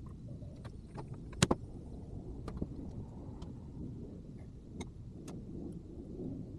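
Scattered light clicks and taps of small parts being handled during a transmission control module rebuild, the sharpest a quick double click about a second and a half in, over a steady low background hum.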